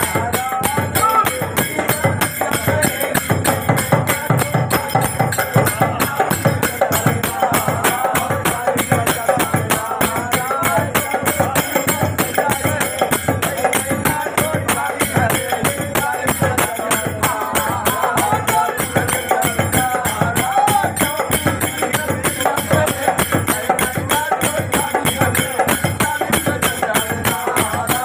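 Men singing a phagua (Holi folk song) together, with a dholak barrel drum and brass manjira hand cymbals keeping a steady, quick beat.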